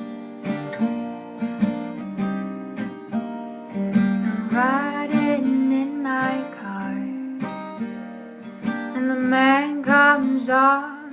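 Acoustic guitar strummed in a repeating pattern, with a voice singing a wordless line about four seconds in and again near the end.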